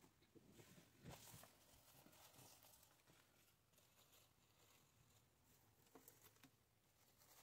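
Near silence: room tone, with a few faint, brief rustles about a second in and again near the end.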